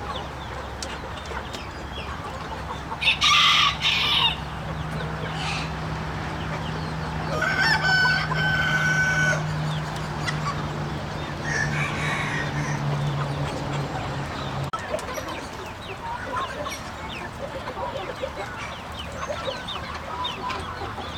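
Chickens clucking, with roosters crowing: loud calls about three seconds in and again around eight seconds, and a smaller one near twelve. A steady low hum runs underneath through the first part and stops about fifteen seconds in.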